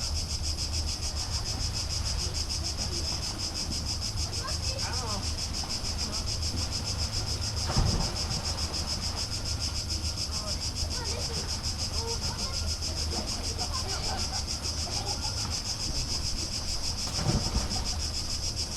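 A steady, high-pitched insect chorus with a fast pulsing buzz, over a low outdoor rumble. A brief louder knock comes about eight seconds in, and another short sound near the end.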